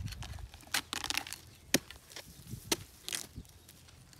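Hoe and machete chopping into the soft, rotten fibrous pulp of a sugar palm trunk: about five irregular sharp chops, with crunching and tearing of the fibre between them.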